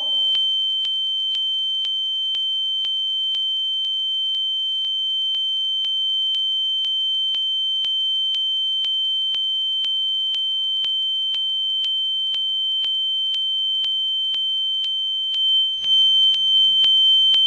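Steady sine-wave tone of about 3.1 kHz from an audio function generator, played through a loudspeaker, with faint regular ticks a few times a second. A brief low rustle of handling comes near the end.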